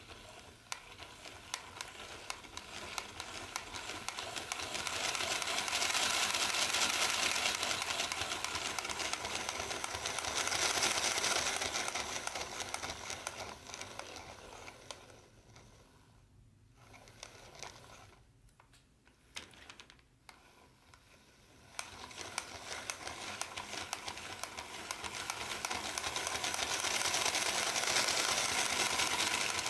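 Bachmann HO-scale electric model train running on its track: a steady whirring rattle with fast clicking from the wheels. It grows louder and fades as the train circles past, dropping low in the middle before swelling again near the end.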